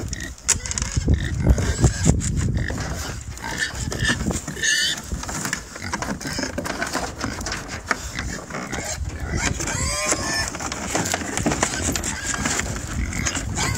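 Pigs grunting as they walk down a plywood-and-batten ramp off a trailer, their trotters knocking on the wood, with a couple of short higher calls about five and ten seconds in.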